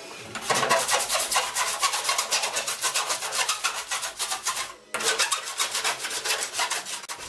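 Hand sanding block rubbed quickly back and forth over a car's rear body panel, about six or seven strokes a second, pausing briefly about five seconds in.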